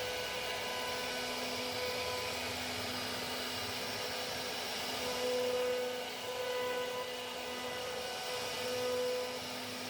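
CNC router spindle running and cutting plastic: a steady whine over a noisy rush, its tone swelling and easing every second or so as the cutter's load changes.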